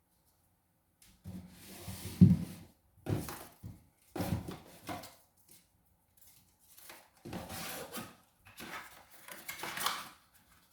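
Cardboard packaging and its contents handled in a series of short rustling, rubbing and scraping bursts, with one sharp knock about two seconds in.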